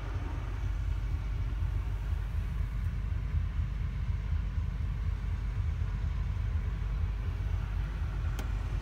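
Diesel engine of a CAT 772G off-highway dump truck idling steadily, a low, even rumble heard inside the cab.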